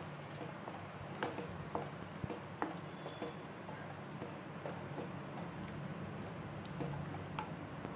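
A wooden spatula stirring chickpeas in thick masala gravy in a pan: wet stirring with scattered light taps against the pan, over a low steady hum.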